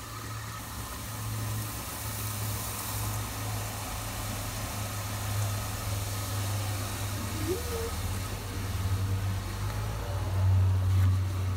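Water from a garden hose spray nozzle running into a plastic bucket, a steady hiss of spray. Beneath it, a low steady rumble like an idling engine, loudest near the end.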